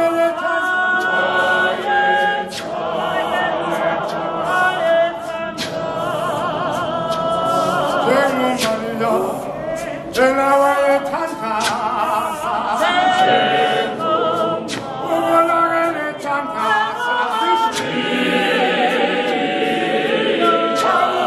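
Mixed choir of men and women singing a church hymn in isiZulu a cappella, in several parts, with no instruments.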